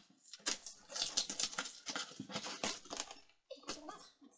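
Large cardboard box being pulled open by hand: a run of irregular scrapes and crackles of cardboard and packing tape, pausing briefly before a few more near the end.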